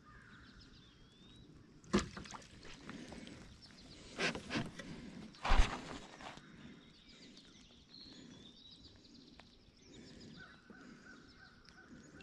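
A few sharp knocks and thumps against a fishing kayak as a netted bass and gear are handled, the loudest about five and a half seconds in. Birds chirp faintly in the background.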